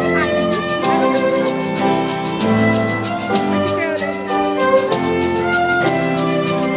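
Background music: sustained instrumental chords, with a light ticking beat at about three ticks a second.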